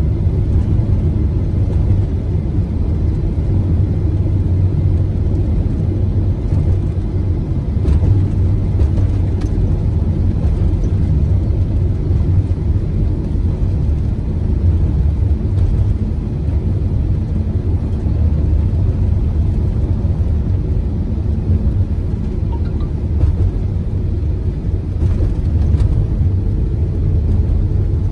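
Steady low rumble of a vehicle driving along a snow-covered road, heard from inside the cabin: engine and tyre noise.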